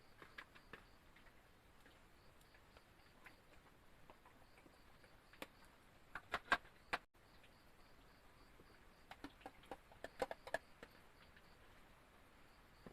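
Quiet background with scattered light clicks and taps, in two short flurries about six and ten seconds in.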